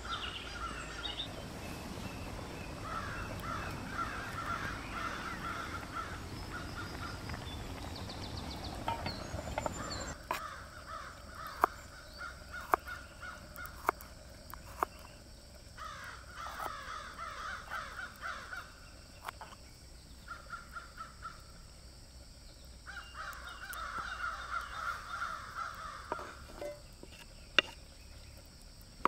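Crows cawing in repeated bouts. From about ten seconds in, a few sharp knocks of a knife chopping on a wooden cutting board, plus one more sharp knock near the end.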